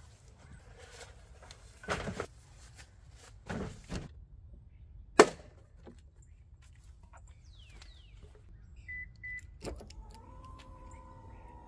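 Scattered knocks and clacks of gear being handled and loaded onto an SUV, with the sharpest knock about five seconds in as a plastic fuel can is fitted to its mount. A couple of short high beeps come near the end, and soft music with held notes begins just before the end.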